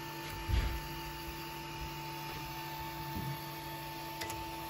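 Anycubic Mega 3D printer humming steadily with a few fixed tones while it sits paused mid-print for a filament change. There is a soft knock about half a second in.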